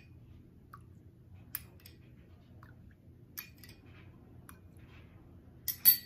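Metal teaspoon clinking against a small glass bowl and a drinking glass as lemon juice is spooned into water: a few light, separate clinks, the loudest pair near the end. A faint low hum runs underneath.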